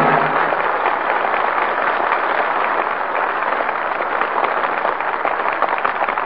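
Audience applauding, with the orchestra's closing chord cutting off just at the start.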